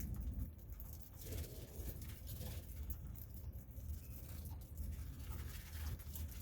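Budgerigars at a vegetable meal: scattered small pecking clicks and faint brief chirps over a steady low hum.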